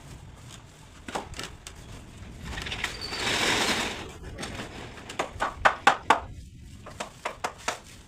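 Woodworking on a wooden door: a few light clicks, a rasping noise lasting about a second and a half, then a quick run of sharp knocks on wood, about four a second in two bursts with a short pause between.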